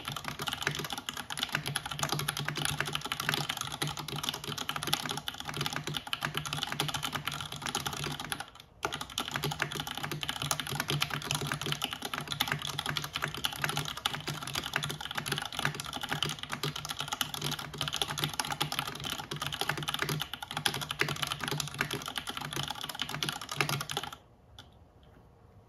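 Continuous fast typing on a Time 80 Reforged mechanical keyboard with a full aluminium plate and stock MX UHMWPE linear switches, keys clacking densely. A short break about eight and a half seconds in, and the typing stops near the end.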